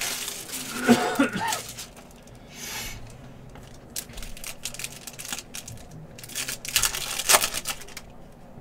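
Foil trading-card pack being torn open and crinkled by hand, in several short rustling bursts, with the cards slid out. A brief throat sound about a second in.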